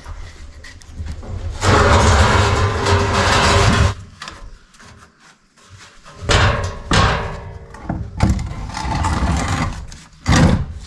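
A heavy oak lintel beam scraping and sliding over stone and a metal scaffold board as it is shoved into a wall opening. The noise comes in several rough stretches, the longest and loudest about two seconds in, with a few knocks.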